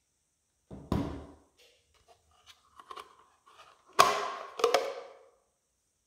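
Hard plastic parts of a handheld cordless vacuum's dust container knocking and clicking as the filter insert is taken out of the clear dust bin: a dull thump about a second in, a few light clicks, then two sharp clacks near the end.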